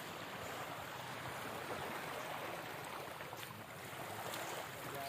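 Wind on the microphone with small waves washing on the shore, a steady rushing noise.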